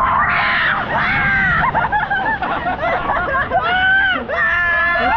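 A group of riders shouting and screaming together on a river rapids raft ride, several voices yelling at once. There is a loud long scream about half a second in and a burst of high yells near the end.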